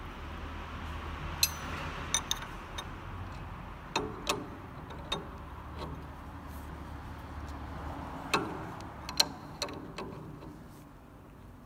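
Irregular sharp metal clicks and clinks as an open-end spanner and an adjustable wrench grip and turn the spindle nut of a wood CNC lathe, tightening a tool onto the spindle. A steady low hum runs beneath.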